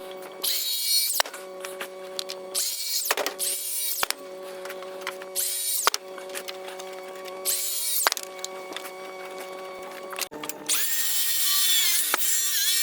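A handheld power tool, likely a drill or driver, running in about six short bursts of high whine, each winding down as the trigger is released, with the longest burst near the end. A steady low hum runs underneath.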